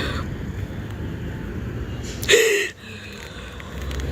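Low, steady rumble of road traffic, with a short, loud burst of a person's voice or breath about two and a half seconds in.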